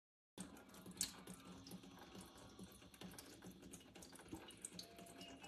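Faint watery sound with scattered small clicks and drips, cutting in suddenly out of total silence just after the start, with one sharper click about a second in.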